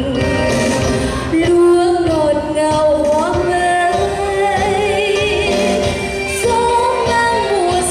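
A woman singing a slow Vietnamese song over instrumental accompaniment, holding some notes with vibrato.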